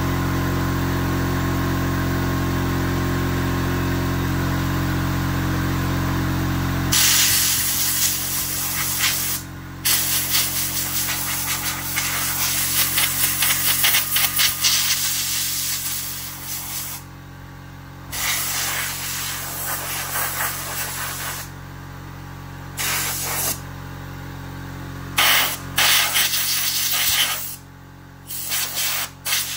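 Compressed air hissing from an air-compressor blow gun in on-off blasts of a few seconds each, blowing dirt out of a chainsaw. Before the blasts, a steady motor hum runs and cuts off about seven seconds in.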